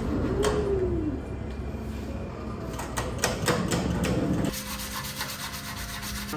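Shop noise as an engine block is hoisted out of a cabinet parts washer: a short squeak about half a second in and a few sharp metal knocks around three seconds in, over a rough scraping noise. Near the end this gives way to a steadier, quieter hum.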